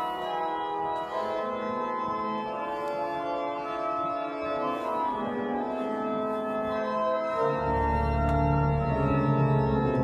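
Organ played in sustained chords on the manuals. A deep bass comes in about three-quarters of the way through, filling out the sound.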